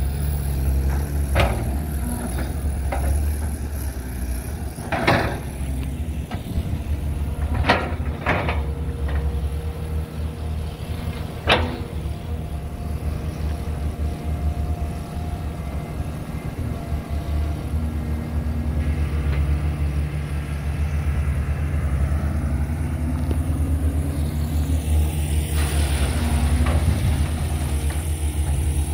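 CAT hydraulic excavator's diesel engine running steadily as it digs, with a few sharp knocks and cracks from the work in the first half, the loudest about a third of the way in.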